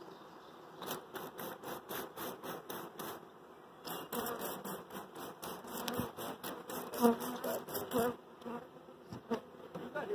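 Honey bee swarm buzzing, with bees passing close in a quick, uneven run of short buzzes.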